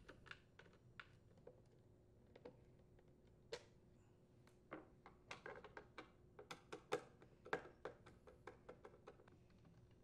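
Faint, irregular clicks and ticks of a T25 Torx screwdriver turning out the screws of an Echo PB-250LN leaf blower's cover, growing more frequent about halfway through.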